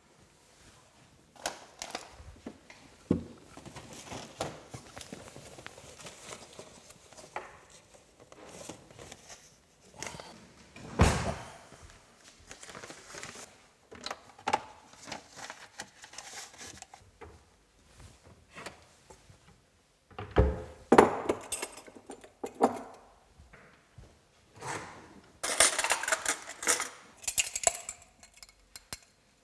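Kitchen handling sounds from setting up a drip coffee maker: scattered knocks and clicks from a pull-out pantry cabinet, the coffee maker's lid and a coffee tin. A louder run of knocks comes about two-thirds of the way in, and a stretch of rattling and clinking comes near the end.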